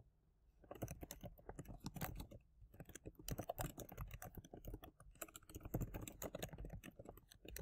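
Faint typing on a computer keyboard: a quick, uneven run of keystrokes that starts about a second in, as a line of text is typed out.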